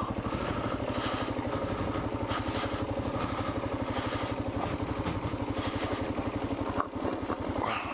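Kawasaki KLR650's single-cylinder four-stroke engine running at a steady low speed, its firing pulses even throughout, with a brief dip in level near the end.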